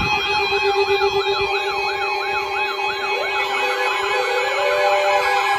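Electronic siren alert wailing up and down about two to three times a second over a steady held tone. The sweeps quicken about three seconds in, and a second sweeping siren tone joins near the end.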